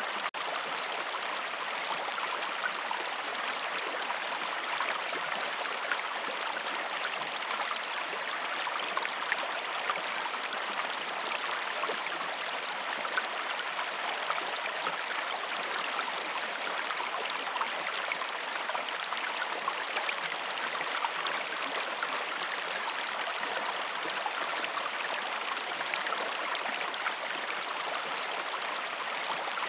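A river's water flowing steadily, an even rushing sound with small irregular splashes in it.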